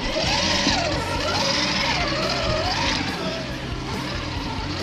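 Electric drive of a Redcat Gen8 RC scale crawler whining, its pitch rising and falling with the throttle several times, while its tyres churn and splash through mud and water.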